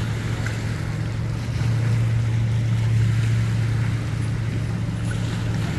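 Motorboat engine idling steadily, with wind and lapping water.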